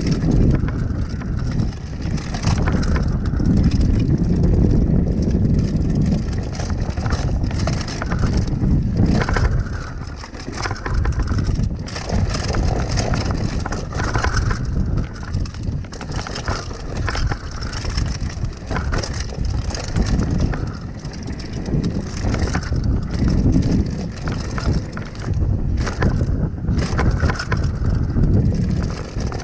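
Mountain bike riding fast down a dirt and gravel trail: knobby tyres crunching over the dirt with frequent sharp clicks and rattles as the bike hits bumps and loose stones, over a low rumble of wind on the microphone that swells and eases every few seconds.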